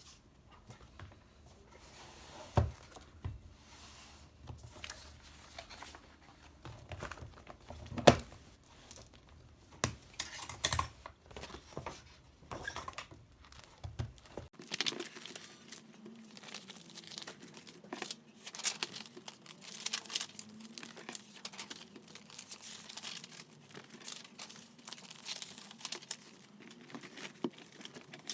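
Quiet close-up handling sounds: crinkling and tearing, with scattered light taps and knocks. About halfway the low background hum drops away and the crinkling and tapping go on.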